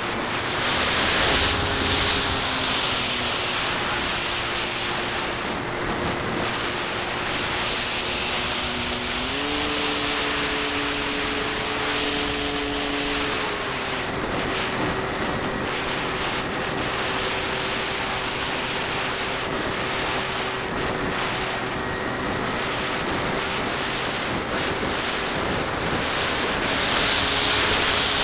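Electric motor and propeller of an Ares Gamma Pro RC plane, heard from a camera mounted on the aircraft beside the prop: a steady hum under heavy wind rush. Its pitch steps up about nine seconds in and drops back about four seconds later as the throttle is changed.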